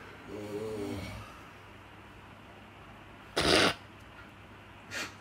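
A man snoring in his sleep: one drawn-out, wavering snore about half a second in, then a short loud breathy burst about three and a half seconds in and a smaller one near the end.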